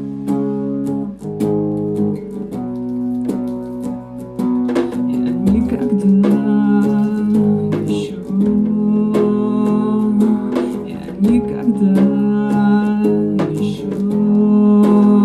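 Acoustic guitar strummed through a chord progression, the instrumental introduction to a song.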